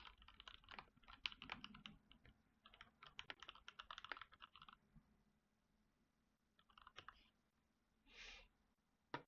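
Faint computer keyboard typing in quick runs of keystrokes that stop about five seconds in, a short burst more around seven seconds, then a single sharp click near the end.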